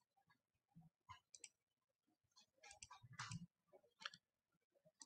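Near silence with a few faint, scattered clicks and taps, a small cluster of them about three seconds in.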